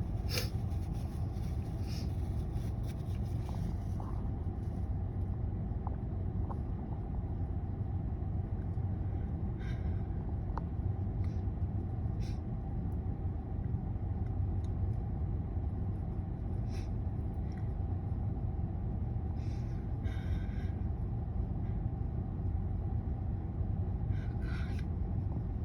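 A steady low rumble with a few faint, short sniffs and breaths from a congested person trying to bring on a sneeze that builds but does not come.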